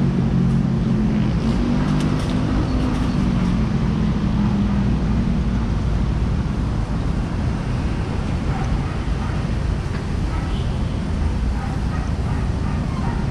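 Steady low rumble of road traffic, with a nearby vehicle engine running for the first five seconds or so and then fading away.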